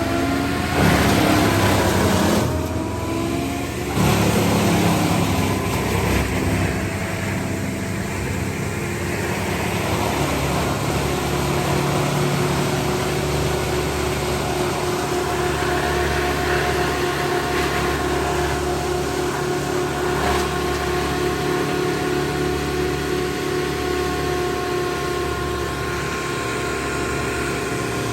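Engine of tree-removal power equipment running: its pitch rises and falls a few times in the first seconds, then it holds at a steady pitch.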